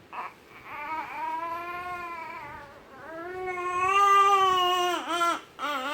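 Newborn baby crying: a short sound, then two long drawn-out cries, the second louder, followed by short broken cries near the end.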